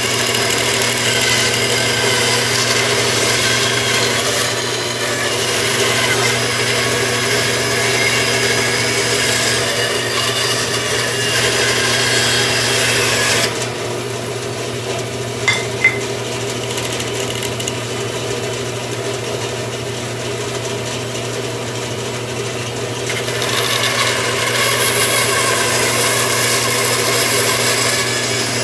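Bandsaw running with a steady motor hum, its blade cutting through stacked wooden spoon blanks. The cutting drops away for several seconds in the middle, leaving the saw running free with two short clicks, then resumes near the end.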